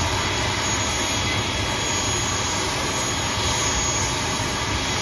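Turboprop engines of an ATR 42-600 (Pratt & Whitney Canada PW127) running at ground idle on the stand. The sound is a steady rushing noise with a thin, high, unchanging whine.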